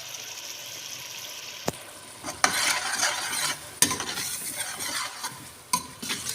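Onion-tomato gravy with freshly added ground spices sizzling in the pan, a steady hiss at first. From about two and a half seconds in, a spoon stirring and scraping through it, with a few sharp clinks against the pan.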